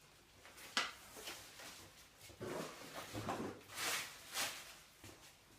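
Packaging being handled during unboxing: a sharp click about a second in, then several bursts of crinkly rustling.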